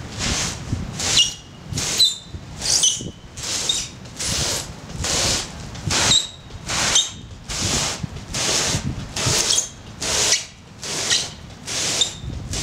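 A plastic sled scraping over a thin layer of snow in regular shoves, about one every 0.8 s, each a short hissing scrape with a brief high squeak. The snow is too thin to let the sled glide, so he is pushing himself along.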